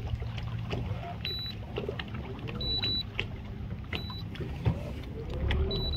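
Boat motor running low and steady, with wind and water noise around it. A few short, high electronic beeps sound at intervals.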